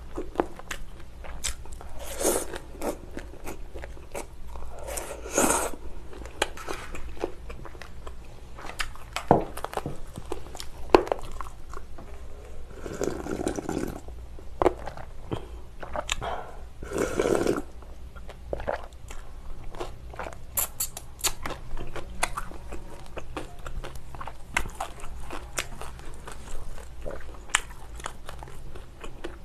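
Close-up chewing and crunching of spicy cold noodles and kimchi, with many small wet clicks of the mouth. A few longer slurps come through, including drinking the broth straight from the metal bowl around the middle.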